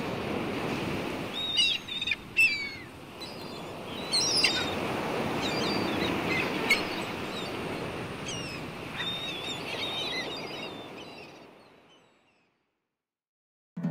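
Ocean surf washing steadily while several birds chirp and call over it. The sound fades out to silence near the end.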